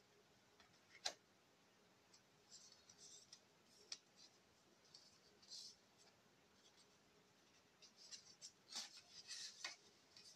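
Faint handling of stiff collectible cards and photo prints: light rustles and small clicks as they are picked up and shuffled. The sharpest click comes about a second in, and a cluster of rustles and clicks comes near the end.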